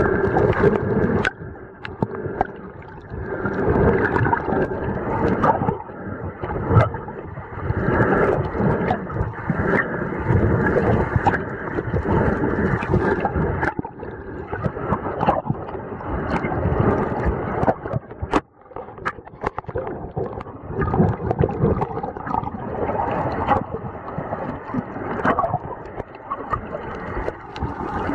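Muffled water gurgling and sloshing around a waterproof camera held underwater, surging and easing every few seconds, with a brief break about eighteen seconds in.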